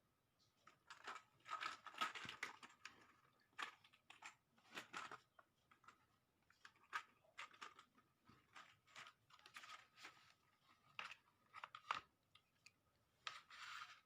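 Faint, irregular crinkling and rustling of packaging being handled, in short clusters, with a faint steady whine underneath.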